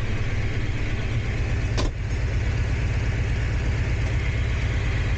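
Diesel locomotive running under way, heard inside the driving cab: a steady deep engine rumble over the noise of the train on the track. A single sharp knock comes about two seconds in.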